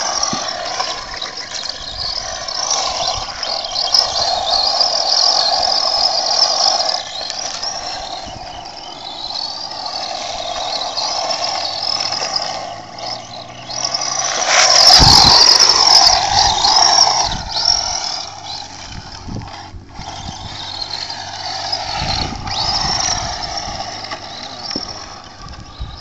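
Radio-controlled rally car driving on gravel, its motor whine rising and falling with the throttle and swelling and fading as the car comes and goes. It is loudest about 15 seconds in.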